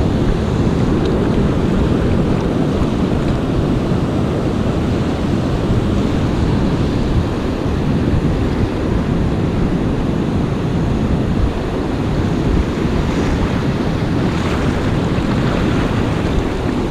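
Wind buffeting the microphone over steady surf breaking on the beach, a loud continuous rumble with no distinct events.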